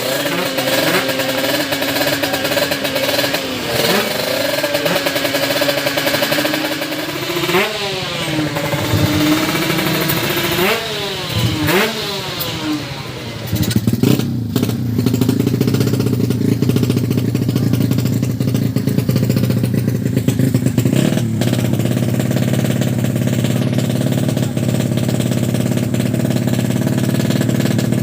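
Drag-bike motorcycle engine idling and blipped, its pitch rising and falling sharply several times. About halfway through, a lower, steady engine running takes over.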